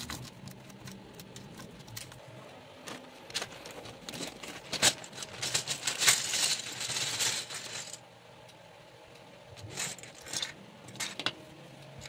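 Loose white plastic keycaps clattering and rattling inside a plastic bag as it is handled, the bag crinkling, with the densest clatter in the middle; then a few scattered clicks of keycaps set down on the desk mat.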